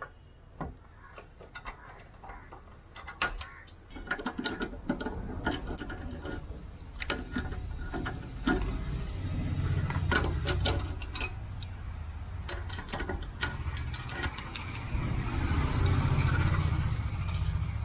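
Wheel nuts on a Maruti Gypsy's rear-mounted spare wheel being undone with a hand socket wrench: irregular metallic clicks and rattles of the socket on the nuts. A steady low rumble builds up underneath and is loudest near the end.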